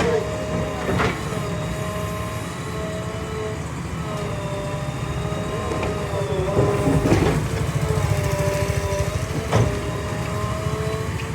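JCB 3DX backhoe loader's diesel engine running steadily with a wavering whine over it. Sharp knocks come about a second in, about seven seconds in and again near the end.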